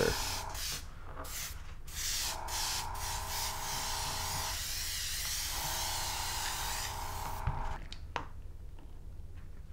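Trigger airbrush spraying paint at raised air pressure for a general coat. It hisses in repeated bursts with brief breaks as the trigger is pulled and eased, then stops about eight seconds in, followed by a single click.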